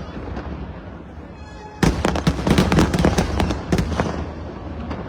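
Fireworks display: a quieter spell of low rumbling, then about two seconds in a sudden volley of many sharp bangs and crackles that lasts about two seconds and thins out near the end.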